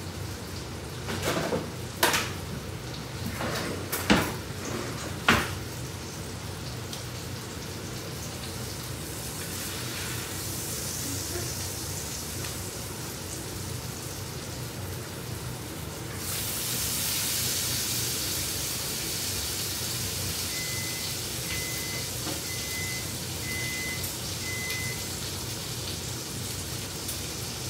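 Food sizzling in a frying pan, a steady hiss that gets louder about two-thirds of the way through. A few sharp knocks of kitchenware come early on, and near the end a kitchen appliance gives five short electronic beeps about one a second.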